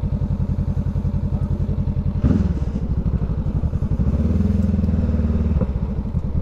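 Honda CBR500R parallel-twin engine running at a low, pulsing idle. A short, sharp rev comes a little over two seconds in and falls away, then the engine holds a slightly higher, steadier note for about a second and a half before dropping back to idle.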